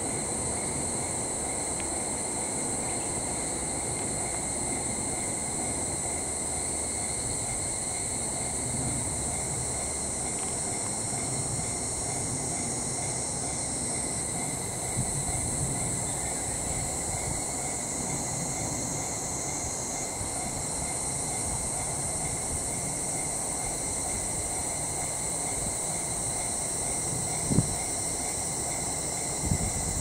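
Railway level-crossing warning bell ringing steadily while the crossing is closed, over insects buzzing high and steady. A low rumble sits underneath, with two short thumps near the end.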